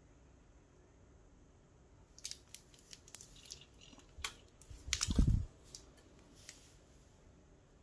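Graphics card packaging being handled: a run of small clicks and crinkles from about two seconds in, with a louder dull thump about five seconds in.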